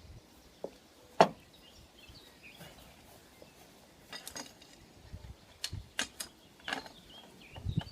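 Metal clicks and knocks of a bottom bracket spanner on the left-hand cup of a Shimano Hollowtech II external bottom bracket as the cup is worked loose: one sharp knock about a second in, then a scatter of clicks in the second half. Faint birdsong behind.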